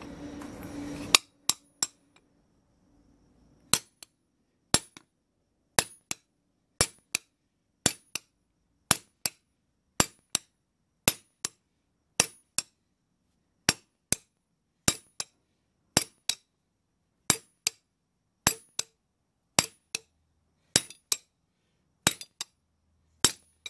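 Short sledgehammer striking a steel round rod laid across a steel strap hinge on a sand-filled leather bag, cold-bending the hinge leaf to a radius. Sharp metallic clanks about once a second, many followed by a lighter second tap.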